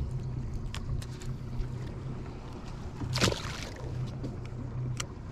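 Boat motor running steadily at low speed, a low hum, with scattered small knocks and a brief rush of noise about three seconds in.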